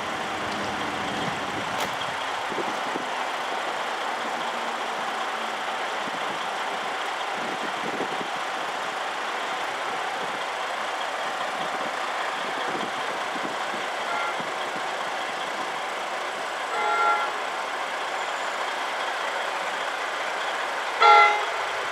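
Mechanical railroad crossing bells ringing steadily at an activated grade crossing. An approaching passenger train sounds two short horn blasts, the second one louder, near the end.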